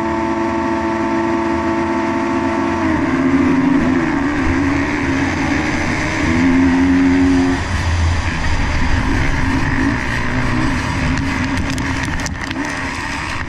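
A pack of motocross bikes held at steady high revs on the start gate, then launching about three seconds in, with engines changing pitch as they accelerate off the line through the gears. Near the end a quick spatter of sharp hits as dirt roost from the bikes ahead strikes the helmet camera.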